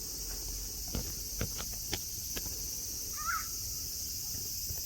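Cicadas singing in a steady, high-pitched chorus. A few sharp clicks fall in the first two and a half seconds, and one brief chirp comes a little past three seconds in.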